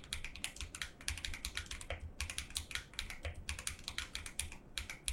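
Typing on a custom mechanical keyboard: a Vortex VX5 Pro PCB in an acrylic sandwich case, with Krytox 205g0-lubed Akko CS Lavender Purple switches and Akko PBT double-shot keycaps. The keystrokes come fast in bursts, with brief pauses about two seconds and three seconds in.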